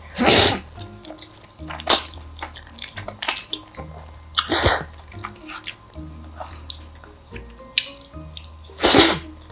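Close-miked eating of jjajangmyeon black bean noodles: several loud, wet slurps of noodles, the longest near the start, about halfway through and near the end, with smacking chewing clicks between. Soft background music plays underneath.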